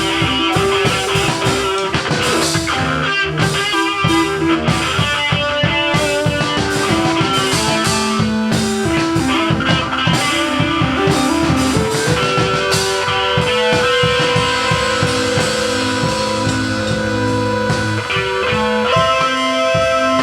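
Rock music with guitars over a drum kit. The drumming thins out about twelve seconds in, leaving longer held notes.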